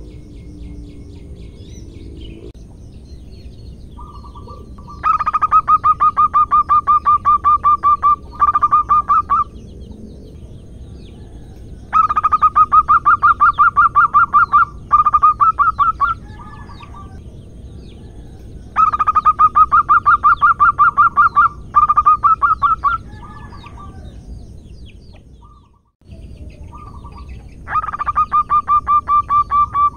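Zebra dove (perkutut) cooing in rapid staccato runs of evenly spaced notes. There are four runs of about three seconds each, spaced roughly seven seconds apart, and each is followed by one or two shorter runs.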